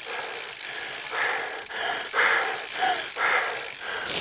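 Rhythmic heavy breathing, a breath about once a second starting about a second in, over a steady hiss of wind and road noise.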